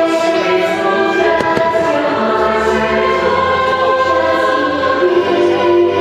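Choir singing with orchestral music from the fireworks show soundtrack, with a couple of faint pops about a second and a half in.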